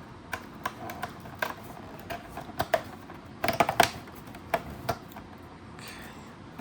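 Cardboard calendar packaging being handled and a compartment opened: a run of irregular clicks, taps and snaps, with a loud cluster about halfway through.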